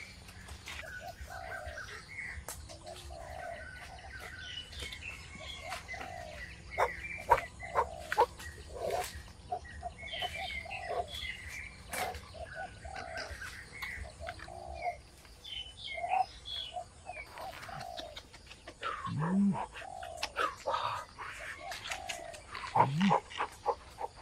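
Repeated short animal calls, with scattered sharp knocks. Two lower calls that rise and fall come near the end.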